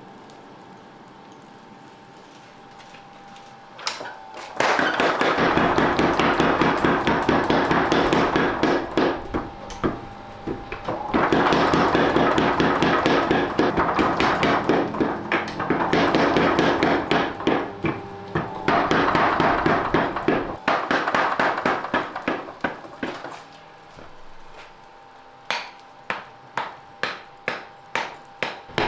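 Hammer blows on red-hot steel on an anvil during knife forging. After a few quieter seconds, three long runs of rapid, loud strikes come with short pauses between them. Near the end, separate single strikes fall about twice a second.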